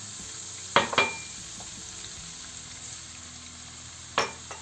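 Melted margarine sizzling steadily in a frying pan as semolina goes in to be roasted, with two sharp clinks about a second in and two more near the end.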